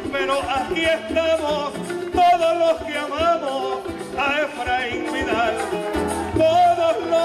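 Live folk string-band music of the kind that accompanies sung décimas, with guitar among the instruments playing a lively melody.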